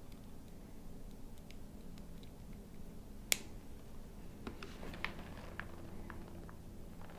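Hands handling a motorcycle intercom headset's speaker plug and cable inside a helmet: one sharp click a little over three seconds in, then a few lighter ticks and rustles.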